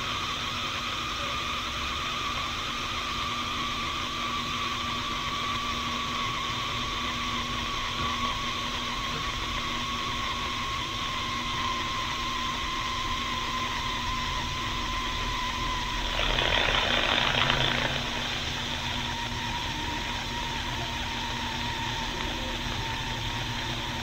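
Instant Pot electric pressure cooker venting steam through its release valve in a quick release, dumping the pressure from the pot: a steady hiss with a whistling tone that slowly falls in pitch. About two-thirds of the way through, the hiss swells into a louder gush for about two seconds.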